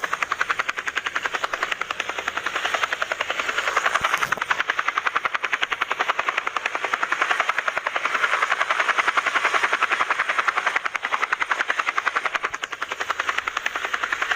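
Helicopter rotor blades chopping in a fast, even beat, swelling and easing in loudness a couple of times.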